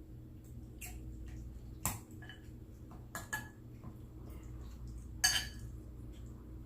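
Cutlery clinking against a plate during eating: about five short, sharp clicks, the loudest about five seconds in, over a steady low hum.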